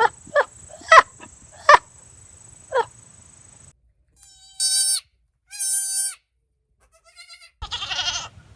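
Goats bleating: a quick run of short bleats, then two long bleats held at one pitch, then a rougher, scream-like bleat near the end.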